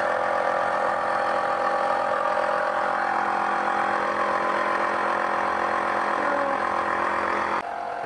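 Smoke machine's air pump running steadily during a vacuum-leak smoke test, a hum of several fixed tones over a hiss, cutting off abruptly near the end.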